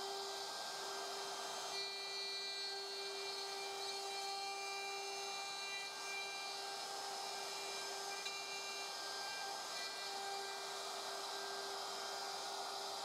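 DeWALT DCW600 cordless compact router in a DNP612 plunge base running steadily, its bit cutting wood as it is guided along a sign-jig template: a steady high whine over the hiss of the cut.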